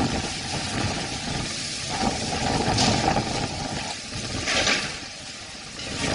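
Storm wind gusting with heavy rain pouring down, a rushing roar that swells and eases, dropping briefly about five seconds in.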